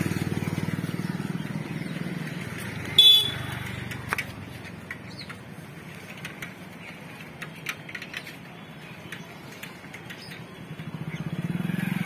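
Road traffic: motor vehicles, motorcycle-like, running past, louder in the first couple of seconds and again near the end. A short, loud vehicle horn honk comes about three seconds in.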